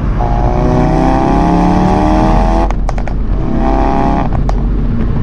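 Ford Focus RS Mk3's turbocharged 2.3-litre four-cylinder engine revved up twice, the first hold about two and a half seconds and the second about one second. Each rev drops off with a few sharp exhaust pops, and the engine settles back to a low idle near the end.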